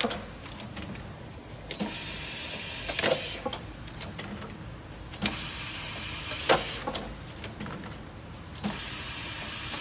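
Alter Pack attached-lid container machine running through its cycle: about every three and a half seconds a hiss of air lasting about a second ends in a sharp clack, with lighter clicks between, as the pneumatic head places containers on the indexing conveyor.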